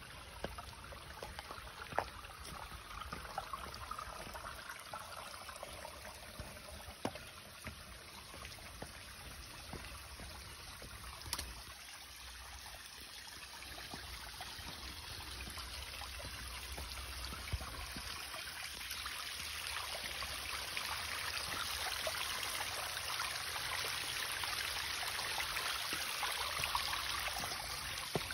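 Shallow creek water trickling and running over shale ledges, a steady rushing hiss that grows louder about two-thirds of the way through. A few scattered sharp clicks sound over it.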